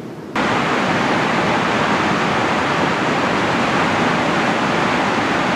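Large river waterfall rushing, a steady, even noise that cuts in suddenly near the start and holds.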